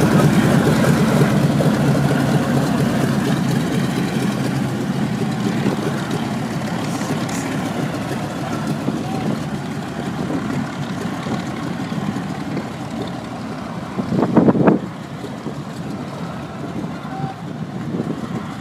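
Radial piston engines of WWII fighters, a Mitsubishi Zero and another warbird, running steadily as they taxi away, the drone slowly fading. A brief louder burst comes about fourteen seconds in.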